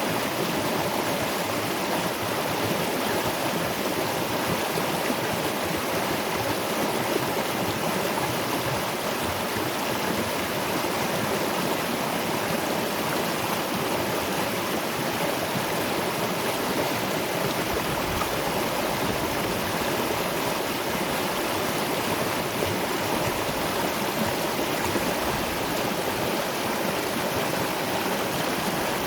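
Waterfall and stream water rushing steadily, an even, unbroken rush with no change in strength.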